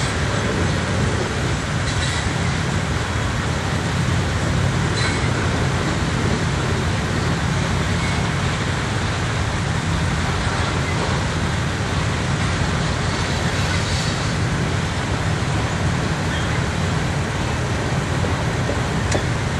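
Covered hopper cars of a Canadian National freight train rolling past: a steady rumble of wheels on rail, with a few faint clicks.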